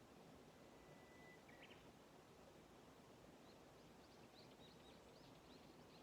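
Faint small songbirds calling over a low background hiss: one long steady whistled note ending in a quick flourish about a second and a half in, then a run of short high chirps from about halfway through.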